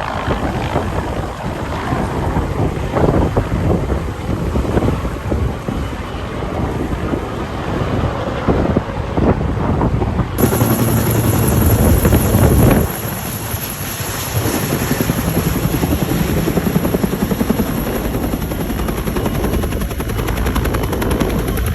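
Helicopter rotor blades beating, with wind buffeting the microphone. About halfway through, the sound changes abruptly to a closer, even beat of the blades with a high steady whine on top.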